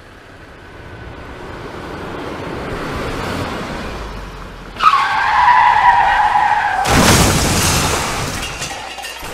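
A car approaching, then its tyres squealing in a skid for about two seconds, cut off by a loud crash about seven seconds in that dies away over the following second or two.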